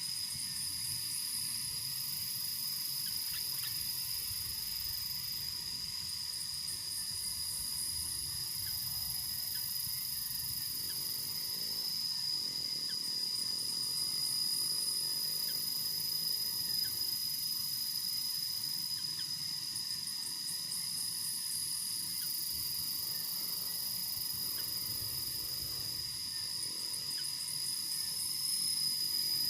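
Insects, crickets or cicadas, droning steadily in a high, continuous tone, with a higher pulsing trill that comes and goes every six to seven seconds.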